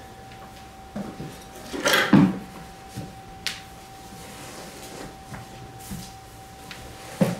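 Scattered light knocks and rubbing of things being handled, loudest as a short cluster about two seconds in, over a faint steady high whine.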